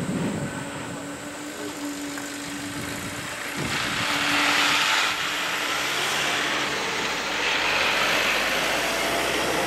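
Distant jet engines of a Boeing 777-200 airliner running on the ground at the runway end, a steady hum. A hiss swells about four seconds in, cuts off a second later, and returns near the end.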